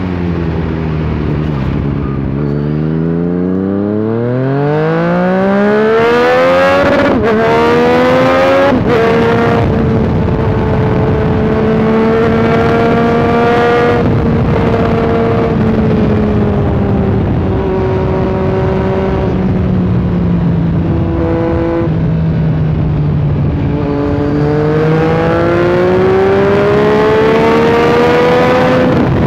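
Yamaha MT-09's inline three-cylinder engine riding under load. It climbs steadily in revs for several seconds, then shifts up twice in quick succession about seven and nine seconds in. It holds a fairly steady cruise with small throttle changes, then pulls up through the revs again near the end.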